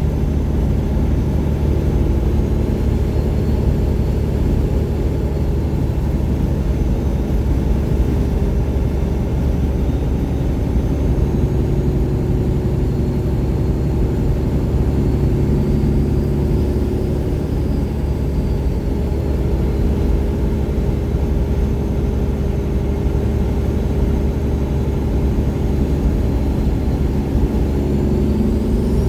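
1999 Peterbilt 379's Detroit Series 60 inline-six diesel running steadily through 7-inch straight pipes. A faint turbocharger whistle drifts slowly up and down in pitch, and near the end it rises sharply.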